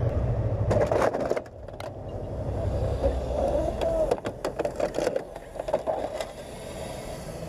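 Motorcycle engine and road noise heard from a helmet camera, with a few sharp knocks about a second in, after which the low engine hum drops away and the sound turns quieter.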